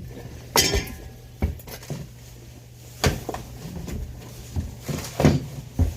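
Scattered knocks and clicks of hard objects being handled, about half a dozen in all, over a steady low hum.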